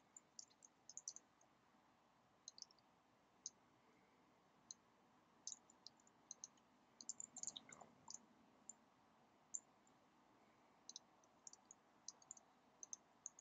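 Faint computer keyboard keystrokes: light, irregular clicks in short flurries with pauses between.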